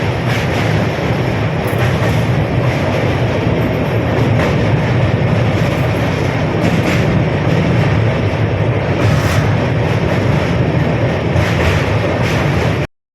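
Moving passenger train: a steady rumble with the clatter of wheels over the rails, cutting off suddenly near the end.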